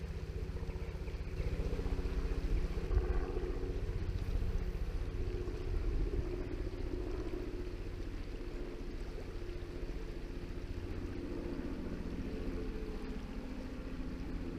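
Steady rush of river water, with a low rumble of wind on the microphone.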